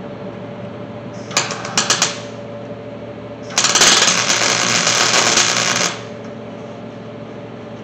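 Wire-feed welder tack-welding a steel C-notch into a truck's frame rail: a few short crackling bursts about a second and a half in, then one steady crackling weld lasting a little over two seconds.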